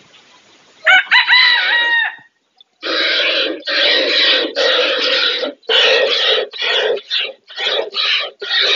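Chickens: a rooster crows briefly about a second in, then a run of loud, rough, rapid calls follows, about one and a half a second.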